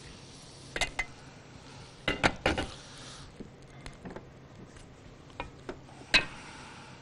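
Metal utensils and dishes clinking in a kitchen: several sharp clinks, the loudest about six seconds in, over a soft hiss in the first three seconds.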